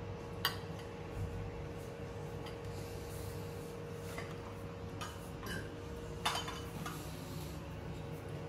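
Spoons clinking against ceramic cereal bowls: a few light, scattered clinks, the sharpest a little after six seconds in, over a steady low hum.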